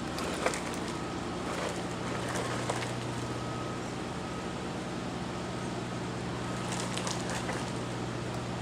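Brushed electric motors of a GPTOYS S920 1/10-scale RC truck running steadily in slow gear, with scattered clicks and knocks as its wheels climb over rocks.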